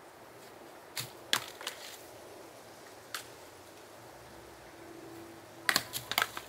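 Dry husked coconuts knocking against one another as they are picked up and dropped back onto the heap: a few sharp knocks about a second in, another around three seconds, and a quick cluster of knocks near the end.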